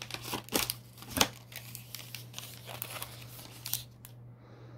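Plastic snack packets crinkling as they are handled and shuffled in a cardboard box, with a few sharper rustles in the first second or so. It goes quieter near the end.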